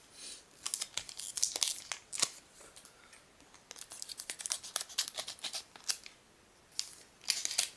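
A Pokémon booster pack wrapper being handled and cut open with scissors: irregular bunches of crisp crinkling crackles and snips, with short quiet gaps between them.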